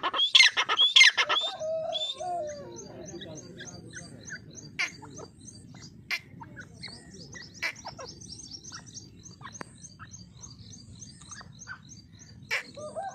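Grey francolin calling: a loud burst of harsh, high, rapidly repeated notes in the first second and a half. A lower wavering cry follows about two seconds in and comes again near the end, and in between runs a faint, even series of high chirps at about three a second.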